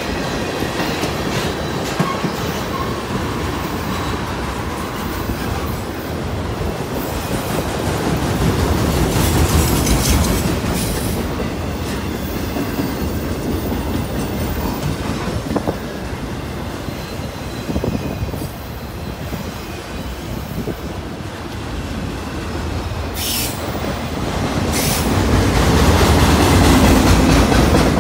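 Freight train cars rolling past at close range: steel wheels rumbling on the rail with clickety-clack over the joints, swelling twice as cars go by, and brief high wheel squeals near the end.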